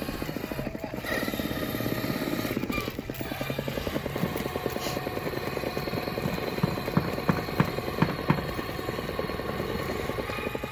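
Axial SCX6 radio-controlled crawler carrying a toy dump-truck body and a rider over asphalt: its electric motor and gear drivetrain whir steadily with a fast pulsing buzz and tyre rumble. A few sharp clicks or knocks come about two-thirds of the way through.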